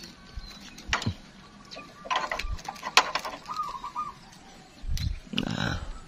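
Caged zebra doves (perkutut) calling faintly, with a few sharp knocks from a hanging bird cage being handled and a louder bout of handling noise near the end.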